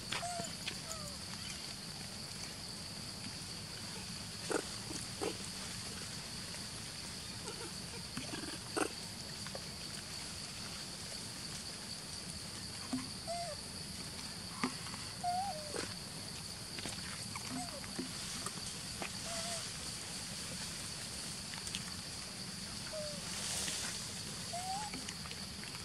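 Long-tailed macaques giving short, soft squeaking calls now and then, each rising or falling briefly, over a steady high drone of insects.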